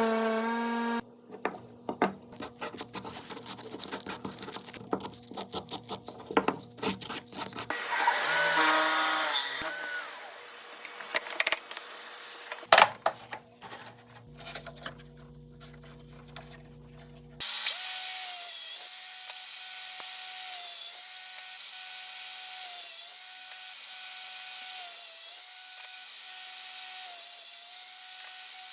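Woodworking power tools in a series of cut-together clips. A machine hum stops about a second in, followed by scattered clicks and knocks of wood being handled and a brief noisy burst near the middle. From a little past halfway a power tool runs steadily, its whine dipping at a regular pace.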